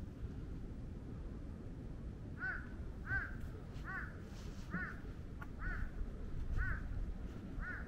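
A bird calling seven times in an even series, about one call every three-quarters of a second, starting about two and a half seconds in.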